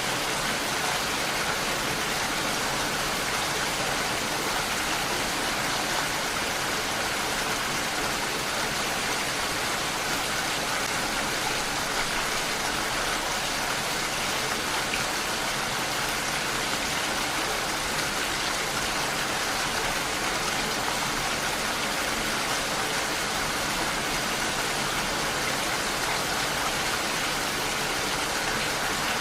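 Steady rainfall, an even hiss of falling rain without a break or change.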